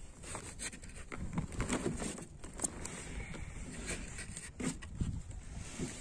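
Irregular light taps and knocks on a small boat as a fishing handline is hauled in hand over hand, over a low rumble.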